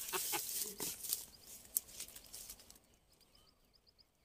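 Rustling of grass and brush with a few light clicks as someone steps down the bank and crouches at the water's edge, dying away after about three seconds. Then a quick run of about eight faint, high bird chirps.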